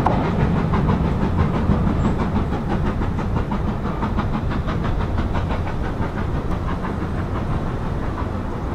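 BR Standard Class 5MT steam locomotive 73082, a two-cylinder 4-6-0, working a train up the bank with a quick, even exhaust beat, the sound steadily fading as it draws away.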